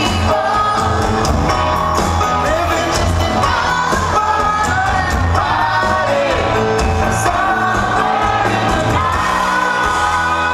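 Live pop-rock band playing with a vocalist singing over the PA, heard from among the concert audience.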